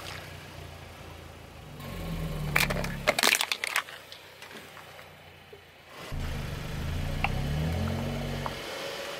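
A car's engine running low as it creeps forward, with a burst of sharp cracks and crunches about two and a half seconds in as a tyre crushes an object; the engine sound drops away for a few seconds, then returns.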